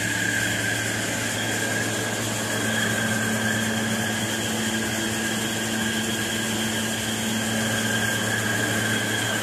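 Steady mechanical hum of running machinery, with several constant high whining tones over it. A lower hum joins about two and a half seconds in.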